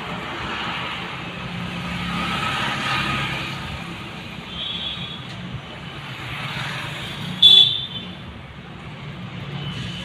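Road traffic passing, swelling and fading, over a low steady hum, with a brief loud high-pitched beep about seven and a half seconds in.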